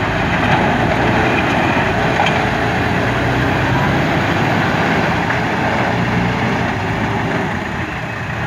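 Diesel engine of an MST M544 backhoe loader running steadily.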